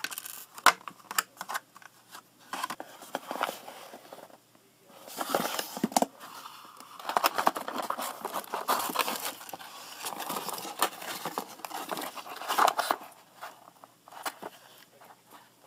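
Packaging handled by hand: a plastic bag crinkling, and paper and cardboard rustling as a box is opened and unpacked, with scattered sharp clicks and taps. It dies down to quieter handling near the end.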